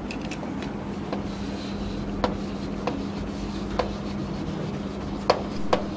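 Chalk writing on a chalkboard: scratching strokes with a few sharp taps as the chalk meets the board, over a steady low hum.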